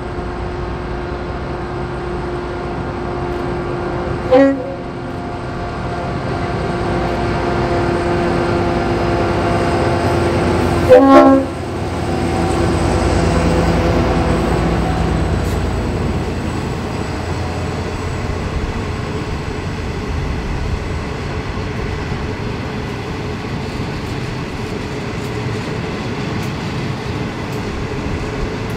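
V/Line N class diesel-electric locomotive (EMD 12-645 two-stroke V12) approaching with its engine running and sounding its horn in two short blasts, about four seconds in and again about eleven seconds in. Its passenger carriages then roll past on the rails, the wheel noise swelling and then slowly fading.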